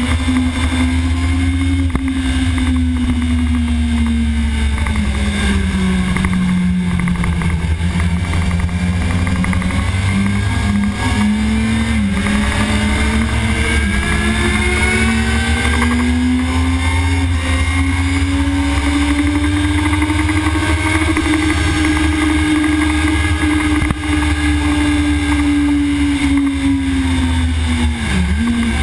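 Sport motorcycle engine running hard on a race track, heard from a camera mounted on the bike, with heavy wind and vibration rumble underneath. The engine pitch sags, then climbs steadily for a long stretch under acceleration, and falls sharply near the end as the bike slows.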